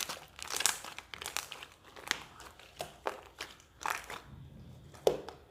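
Slime being stretched and squeezed by hand, giving irregular sharp clicks and crackles as trapped air pops. The slime was softened by soaking in hot water and clicks and stretches well again.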